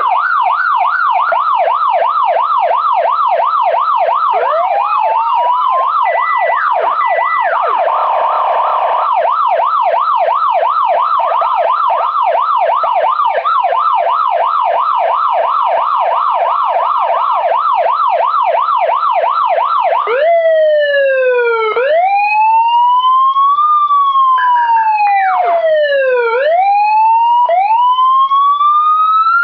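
Electronic police siren module sounding loudly. It runs a fast yelp, rising and falling about three times a second, then switches about two thirds of the way through to a slow wail that rises and falls over a few seconds.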